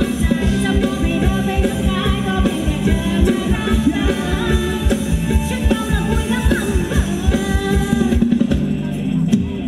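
Live band music with a singer and a steady drum beat.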